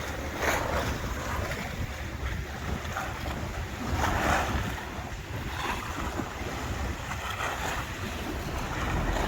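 Small tour boat under way at sea: wind buffeting the microphone and water rushing and splashing past the hull, over a steady low rumble, with surges of splash about half a second in and again around four and five and a half seconds.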